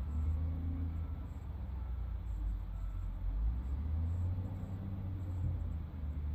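Heavy diesel engine of a large excavator running steadily, a deep low rumble with no sharp knocks.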